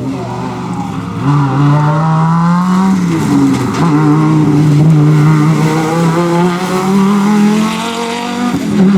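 Rally car engine under hard acceleration, its pitch climbing, dropping briefly about three seconds in at a gear change, then climbing steadily again.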